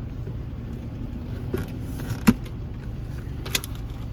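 Steady low hum of a car idling, heard inside the cabin, with one sharp click about two seconds in and a brief rattle about three and a half seconds in, from someone rummaging for a bottle of hot sauce.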